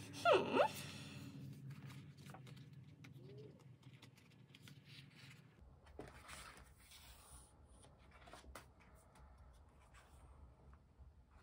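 Two quick rising chirps about half a second in, the loudest sound. After them come soft paper rustles and light taps as the pages of a sticker book are handled and turned.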